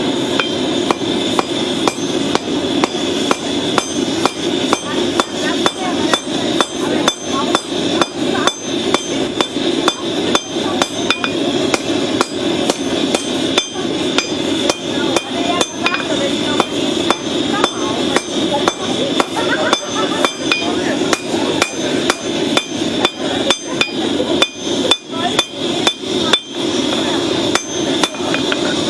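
Steady hammer blows on a red-hot piece of horseshoe-rasp steel on an anvil, about two strikes a second, as the blade is forged. A steady rushing noise runs underneath.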